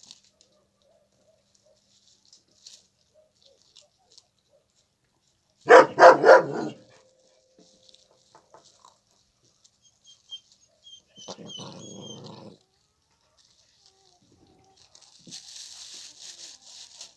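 Puppies feeding on raw meat. About six seconds in, one gives a loud, sharp burst of three quick barks.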